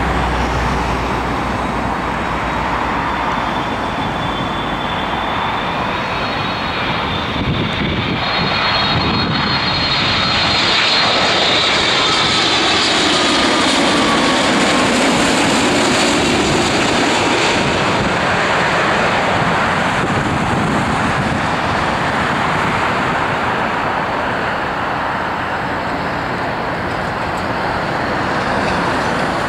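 Air India Boeing 787-8's GEnx jet engines on final approach, passing low overhead: a loud jet roar with a high whine that builds, peaks about ten to seventeen seconds in, and drops in pitch as the aircraft passes. It then settles to a steadier rumble as the airliner rolls out along the runway.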